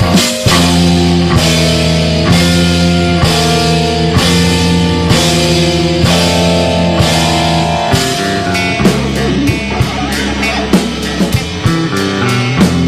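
Recorded screamo/noise rock band music: loud electric guitar chords over a drum kit, with a hit on roughly every beat, about one a second. About eight seconds in, the drumming turns faster and busier.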